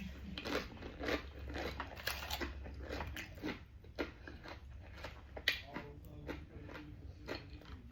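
A person chewing and crunching food close to the microphone: a string of irregular crisp crunches, a few each second, over a low steady hum.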